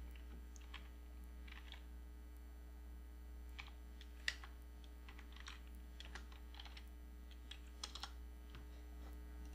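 Computer keyboard keys clicking faintly in scattered, irregular keystrokes as a line of code is typed, over a steady low electrical hum.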